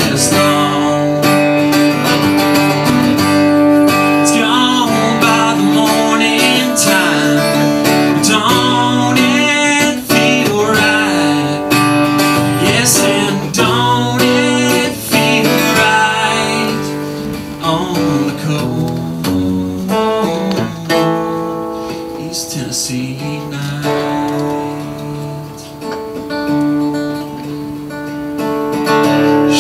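Acoustic guitar with a man singing over it through the first half or so; after that the guitar goes on mostly alone and quieter.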